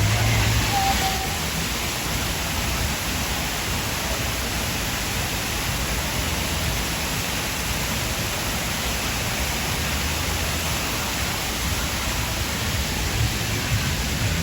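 Steady city street ambience: an even rushing din of traffic and street noise with no distinct events standing out.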